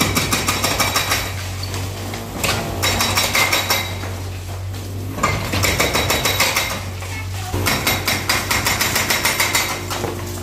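Hydraulic breaker on a Yanmar mini excavator hammering a brick wall in about four spells of rapid blows, with short pauses between them. The excavator's engine hums steadily underneath.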